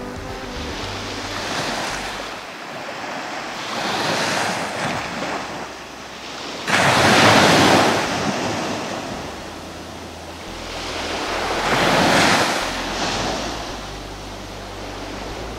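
Small sea waves breaking and washing up a sandy beach. The surf rises and falls in swells every few seconds, and the loudest wave breaks suddenly a little under seven seconds in.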